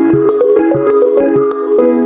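Background music: sustained pitched notes with short struck attacks and a steady pulse, briefly thinning about three-quarters of the way through.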